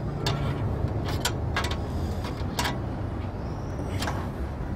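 About five sharp metallic clicks, irregularly spaced, as a hand tool works a bolt on a solar panel's aluminium mounting rail and junction box bracket, over a steady low rumble.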